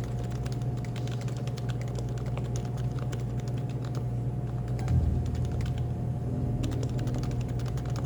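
Typing on a Happy Hacking Keyboard (HHKB): a steady run of key clacks over a low, steady cafe background hum. The keystrokes thin out briefly around the middle, then pick up again.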